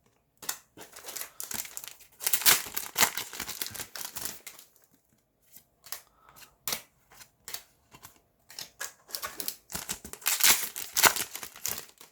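Foil Yu-Gi-Oh booster pack wrappers crinkling and being torn open, with cards handled, in two louder bouts: one about two seconds in and one near the end.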